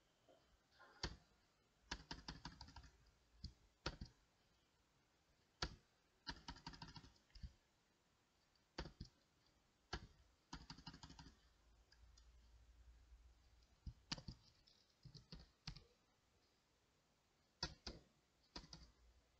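Computer keyboard typing in short bursts of keystrokes, with single clicks and pauses between them.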